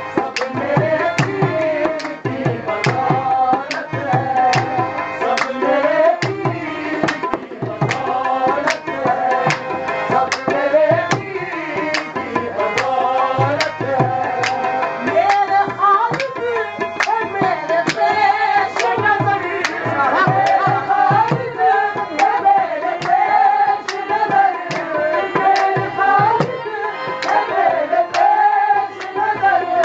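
Qawwali-style devotional music: a harmonium carries the melody over a steady tabla rhythm, with voices singing along.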